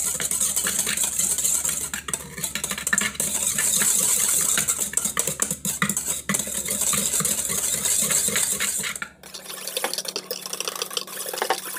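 Eggs and sugar being whisked by hand in a bowl: a fast, steady run of scraping and clinking strokes, with a brief pause about nine seconds in.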